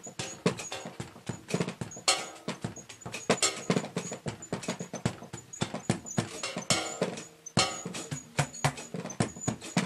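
Drum kit played in quick, irregular runs of hits, with its drums damped: a bubble-wrapped drum and a padded snare give dull, knocking thuds and taps.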